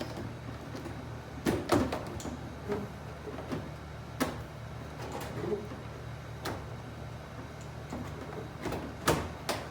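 Scattered knocks and clicks of a dryer's control panel being handled and set back into place, with the loudest pair of knocks near the end.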